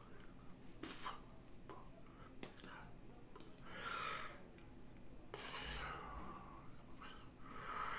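A man whispering: soft, breathy phrases in short bursts with pauses between them.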